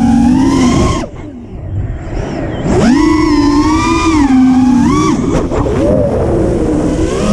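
FPV racing quadcopter's brushless motors (HGLRC Flame 2306 2450kv) whining in flight, pitch rising and falling with the throttle. The throttle is cut about a second in, so the whine drops away and goes quieter. Near three seconds it is punched back up with a rising whine.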